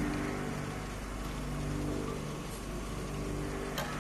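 Sweet potato chips sizzling in hot oil in an electric batch fryer, over a low machine hum that swells and fades. A sharp metal click near the end.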